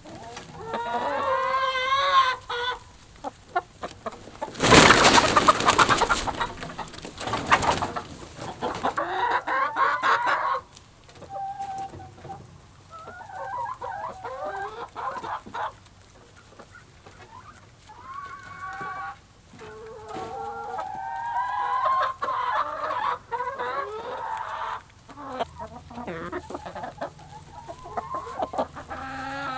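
Chickens clucking and calling, with a loud noisy burst about five seconds in that lasts roughly three seconds.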